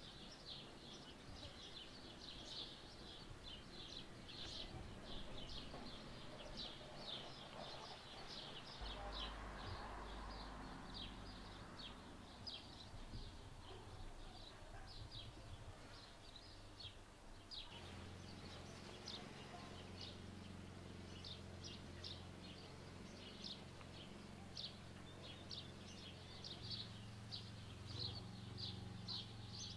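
Small birds chirping, a dense run of short high chirps, faint, over a low steady hum that changes pitch suddenly a couple of times.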